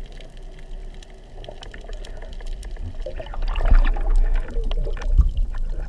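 Water swirling and air bubbles gurgling, heard through an underwater camera housing: a low rumble with scattered clicks that grows louder and more bubbly from about three seconds in.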